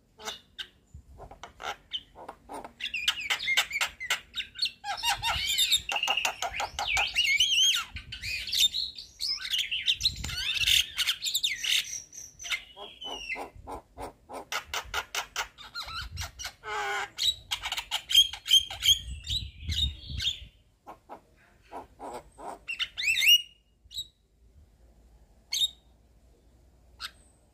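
Javan myna (jalak kebo) singing a long, varied chatter of rapid clicking rattles mixed with squeaky whistles and harsh notes. It thins to a few scattered calls after about 23 seconds.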